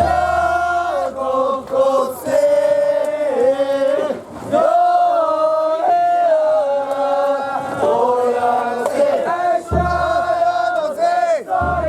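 A crowd of men hauling a festival float chant together in long, drawn-out sung phrases, with short breaths between phrases.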